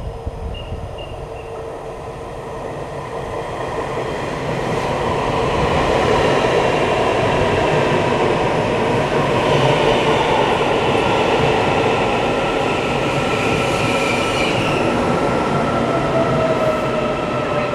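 Taiwan Railways EMU800 electric multiple unit pulling into the platform: a rising rush of wheel and motor noise as the cars pass close by, with a motor whine that falls in pitch as the train slows near the end.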